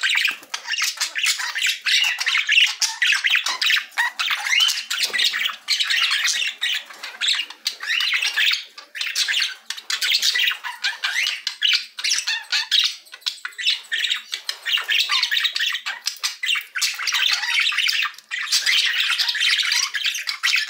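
Budgerigars chattering, a dense, unbroken run of short, quick calls from several birds at once.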